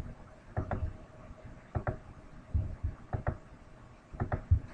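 Soft paired knocks with a dull low thud, repeating about every second and a quarter, over a faint steady hum.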